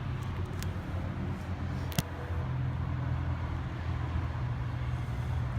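A vehicle engine idling with a steady low hum, and two sharp clicks, the louder about two seconds in.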